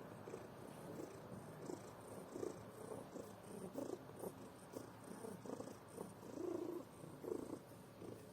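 Domestic cat snoring in its sleep: a soft, rough rasp of short irregular pulses, with a longer, louder breath about six and a half seconds in.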